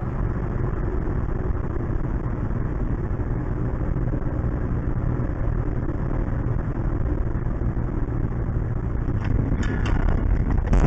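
Car engine and road noise from inside a moving car: a steady low rumble, with a few short clicks near the end.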